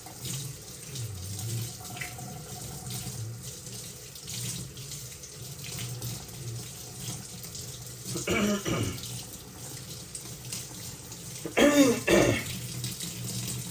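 Kitchen tap running into a sink while something is washed off under it. Two short voice sounds cut through it, about two-thirds of the way in and again louder near the end.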